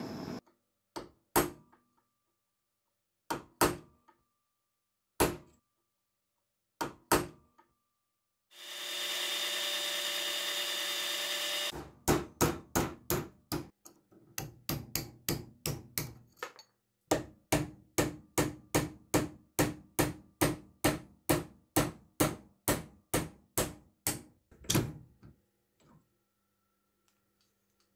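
Hammer striking a steel pin punch to drive out a gear pin of a breast drill: half a dozen separate ringing blows, then a hiss of a gas torch for about three seconds, then a long run of steady blows, about two a second, stopping near the end.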